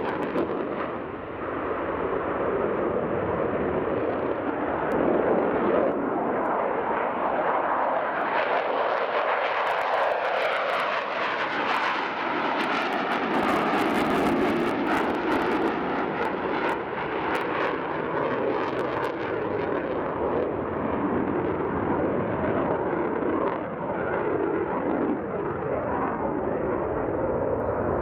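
Jet noise from a Mitsubishi F-2 fighter's F110 turbofan in flight: a continuous rush that holds throughout, with its pitch sweeping down and up as the jet passes.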